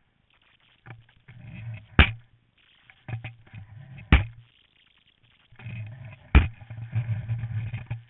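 A monoski running on snow, heard through a camera mounted on its frame: a scraping rumble that comes and goes, broken by three sharp knocks about two seconds apart.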